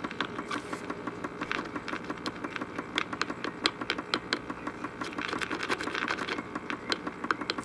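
Vintage AM radio-phonograph powered up through a dim-bulb tester, giving a steady low hum with irregular crackling clicks and only faint signs of life. The owner suspects weak gain from bad filter capacitors and low voltage.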